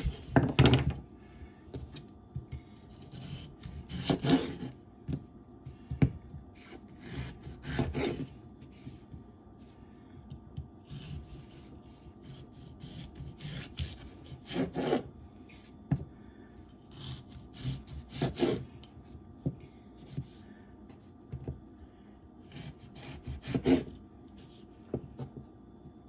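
Serrated knife sawing through raw red new potatoes on a bamboo cutting board, in irregular strokes with a louder cut every few seconds.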